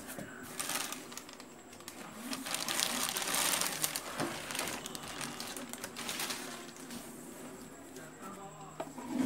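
Plastic packaging crinkling and cardboard box rustling as the mixer grinder's jars and parts are handled, a crackly rustle with small clicks, loudest about three seconds in.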